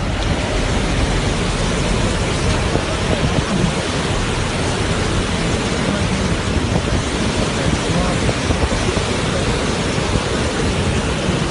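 Floodwater rushing out of a dam's spillway with all its gates open, a steady, loud rush of churning white water: a full reservoir releasing a heavy flood discharge.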